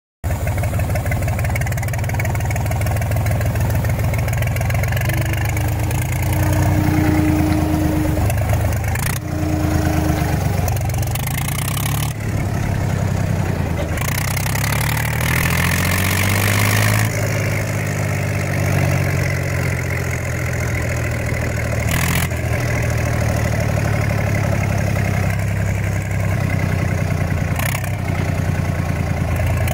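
Deutz 4006 tractor's air-cooled two-cylinder diesel engine running with no exhaust muffler, loud and open as the tractor drives. The revs climb about halfway through, and a few sharp knocks cut in here and there.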